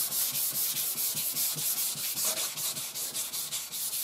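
Wet sandpaper on a rubber sanding block rubbed over a wet, primed car body panel in quick, regular strokes with light pressure: finish wet sanding the final coat of primer before paint.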